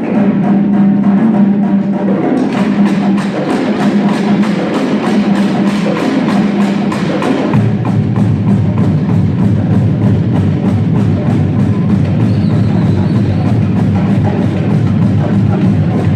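Marching drumline playing a fast percussion piece: dense, rapid drum strokes over a steady low drum tone. About seven and a half seconds in, the low drums shift lower.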